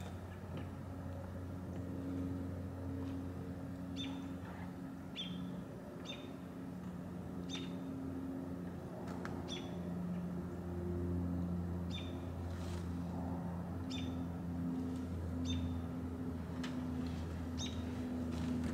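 Small bird chirping: short, sharp single notes repeated every second or two, over a steady low engine-like hum.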